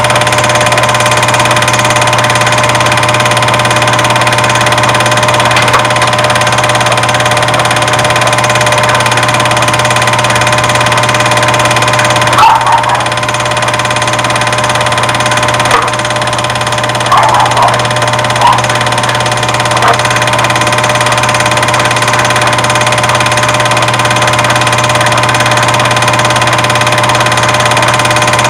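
Loud, steady buzzing hum made of several fixed tones, unchanging throughout, with a few brief faint blips about halfway through.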